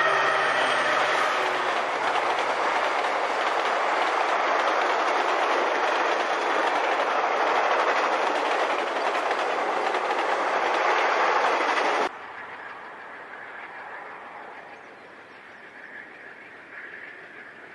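Amtrak passenger train passing close at speed: the diesel locomotives' engine sound fades in the first second, then the steady rolling noise of the passenger cars' wheels on the rails. About twelve seconds in it cuts off abruptly, leaving only faint distant train noise.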